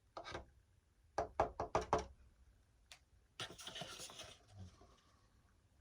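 Quick knocks on a hard surface, probably model airplane tail parts being handled and pressed together on a workbench: one knock, then a quick run of about five about a second in. After that comes a single click and a rustling rub for about a second.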